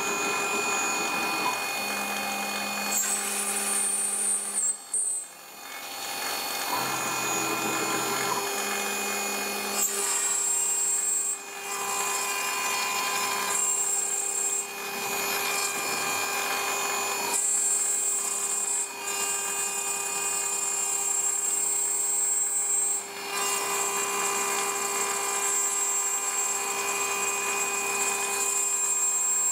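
A CNC 6040 router's spindle milling clear plastic sheet, with a steady high whine and cutting noise. Lower tones come and go and change pitch every few seconds as the machine moves, and the sound drops briefly a few times.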